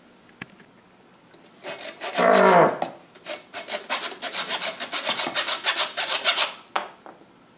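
A person growls a short "grrr" about two seconds in, the loudest sound here, then a handsaw cuts through a 3/8-inch wooden dowel in rapid back-and-forth strokes, several a second, for about three and a half seconds.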